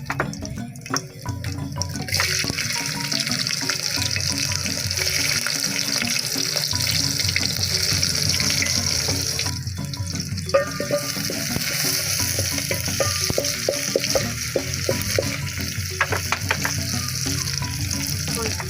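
A steady hissing noise that breaks off briefly about halfway through, with background music underneath.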